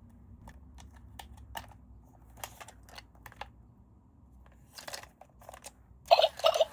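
Scattered light clicks and taps of plastic toy parts being handled. About six seconds in, a loud electronic toy sound with a warbling, sweeping pitch starts.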